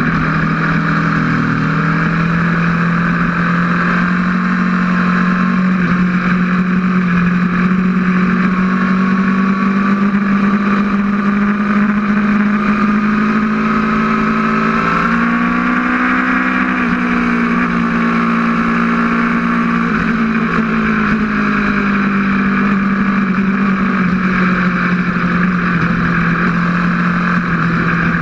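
Aprilia RSV4's V4 engine pulling hard at high revs, mixed with heavy wind rush. The engine note holds steady, climbs about halfway through, then eases back down.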